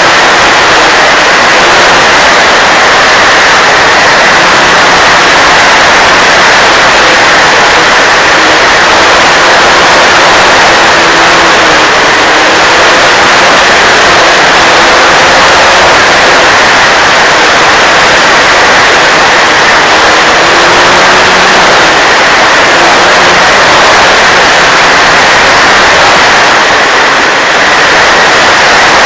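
Radio-controlled Mustang model plane in flight: a loud, steady rushing noise, with a faint motor tone that wavers up and down in pitch.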